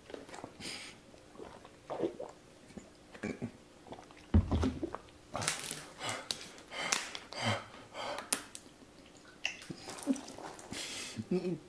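A man drinking in gulps and breathing hard in sharp, hissing breaths, his mouth burning from the extremely hot One Chip Challenge chip. A heavy thump about four seconds in, and a plastic water bottle handled and opened.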